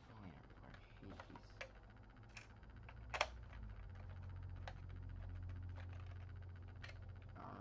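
Small clicks and taps of a clear plastic toy engine model's parts being handled and fitted together by hand, the sharpest about three seconds in. A low rumble swells through the second half.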